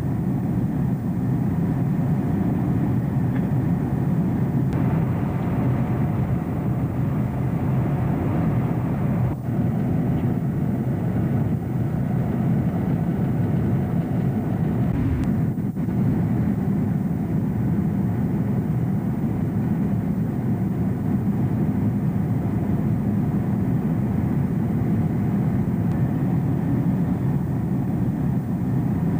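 Steady airliner cabin noise: the constant low rumble of jet engines and airflow heard from inside the passenger cabin.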